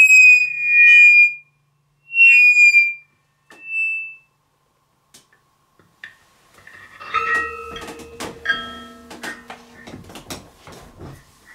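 Electric mbira (thumb piano) through a suitcase amplifier: a few last plucked metal-tine notes, bright and ringing, over the first four seconds. After a pause, a run of clicks and knocks with short hums comes through the amplifier as the instrument and amp are handled.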